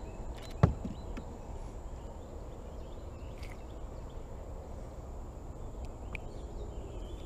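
Quiet outdoor background with a steady low rumble, a single sharp click about half a second in and a few faint ticks from handling a small bass while unhooking a soft plastic lure from its mouth.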